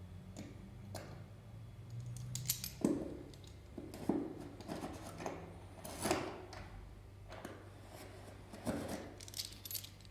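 Old 1990s parquet floor creaking and crackling underfoot: an irregular run of short dry creaks and clicks, the floor squeak that is to be fixed.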